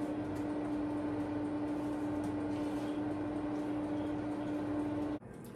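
A steady electrical hum and hiss from a kitchen appliance, with faint irregular taps of a utensil stirring pancake batter in a mixing bowl. The hum cuts off suddenly near the end.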